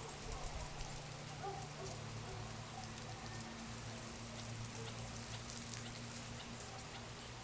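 Outdoor evening ambience: a steady low hum under scattered faint ticks and crackles, with a few faint short chirps in the first couple of seconds.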